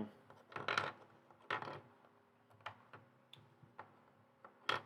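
Plastic Lego pieces being handled, giving a scatter of short clicks and rattles, about five or six over the few seconds.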